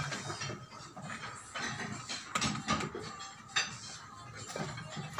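Music playing, with scattered sharp knocks and clinks from building work.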